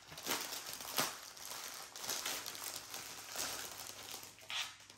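Clear plastic bag holding packets of diamond painting drills crinkling and rustling as it is handled, with a few sharper crackles.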